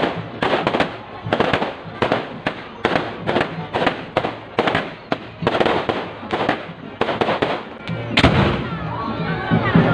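Fireworks going off in a rapid string of sharp bangs, several a second, with a louder bang about eight seconds in.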